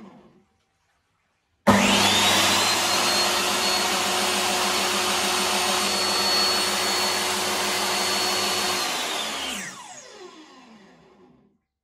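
DeWalt DWE7485 compact table saw with no load, its motor switched on a couple of seconds in, whining up to speed and running fairly loud and steady for about seven seconds. It is then switched off and its brake slows the blade with a falling whine, quiet again within about two seconds.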